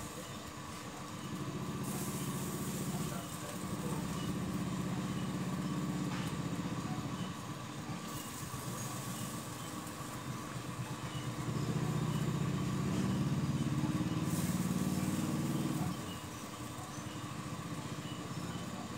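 A motor running with a low, fast-pulsing drone and a steady high hum; the drone swells louder about two seconds in and again from about twelve to sixteen seconds in.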